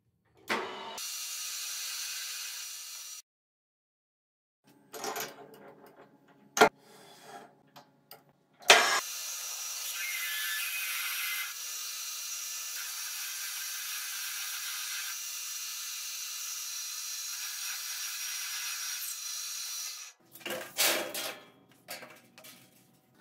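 Metal lathe running steadily for about ten seconds while a hand deburring tool scrapes the edge of the bore in the spinning workpiece. Before it come a shorter run of the machine, light handling clatter and two sharp knocks, the loudest sounds here; near the end, short brushing and clattering strokes as metal chips are swept off.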